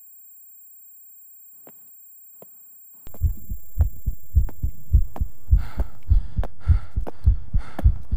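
Near quiet with two faint clicks, then a heartbeat sound effect starts abruptly about three seconds in: deep, even thumps about three a second, with a higher hiss joining about halfway through.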